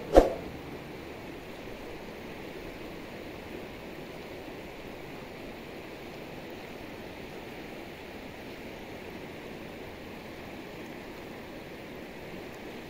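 A shallow, muddy river running steadily over rocks, an even rush of water. About a fifth of a second in, a single sharp click with a short ring, the loudest sound, from the on-screen subscribe-button animation.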